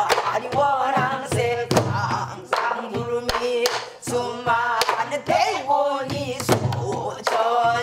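A woman singing pansori in a strained, wavering voice, accompanying herself on a buk barrel drum with sharp strokes of a wooden stick every second or so.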